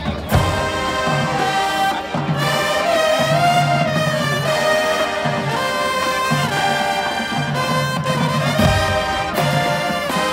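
High school marching band playing a brass-led tune: trumpets, trombones and sousaphones holding sustained melody notes over a repeating bass line.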